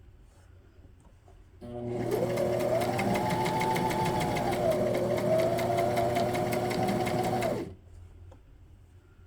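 Home sewing machine stitching a seam with a twin needle: the motor speeds up to a steady run with rapid, even needle strokes, slows briefly near the middle, then stops abruptly after about six seconds.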